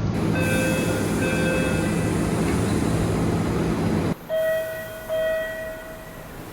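MBTA Orange Line subway car door chime: two beeps of one pitch over the loud steady rumble and hum of the train. After an abrupt cut about four seconds in, another door chime gives two slightly higher beeps, the second longer, over a quieter background.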